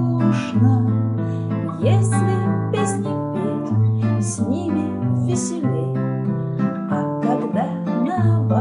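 Nylon-string classical guitar strummed in a steady rhythm, chords over a bass note that changes every second or so.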